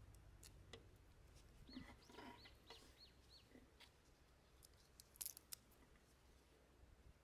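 Faint small sharp clicks and snaps of tara sprouts (angelica tree buds) being trimmed and set down on a wooden board, loudest about five seconds in. A bird chirps a quick run of about six short falling notes near the middle.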